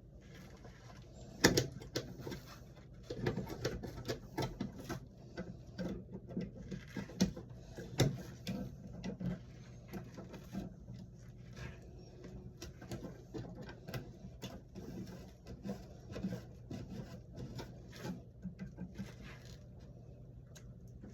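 Pliers working at the wiring of a wall light switch: irregular clicks, taps and small scrapes of metal and plastic as a tight wire is gripped and tugged, with one sharper click about a second and a half in.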